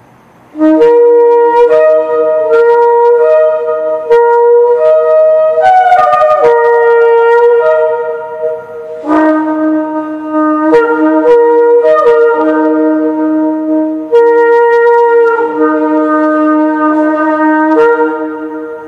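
Yemenite shofar, a long spiralled kudu horn, blown loudly in an improvised run of quick notes that jump among a few pitches. The run dips briefly around the middle and tails off near the end.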